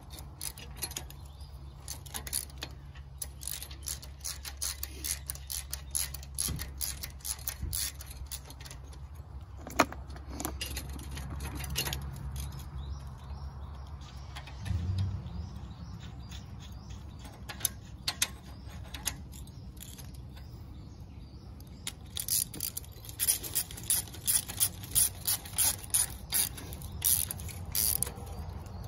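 Small metal clinks of nuts and bolts being handled on a sickle bar mower's cutter bar, then the rapid clicking of a socket ratchet tightening the nuts in the last few seconds, over a low steady hum.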